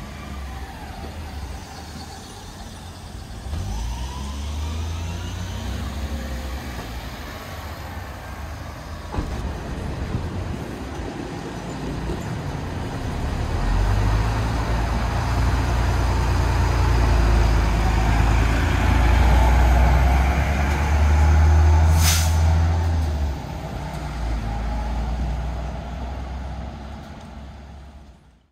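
Street traffic passing, then a city bus running close by with a loud, low engine drone. About two-thirds of the way in comes one short hiss of compressed air from the bus's air brakes. The sound fades out near the end.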